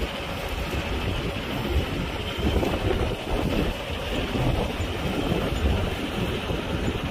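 Gusty wind buffeting the microphone over the steady rumble of heavy diesel machinery at work: a crawler crane lifting a concrete pile, with excavators beside it.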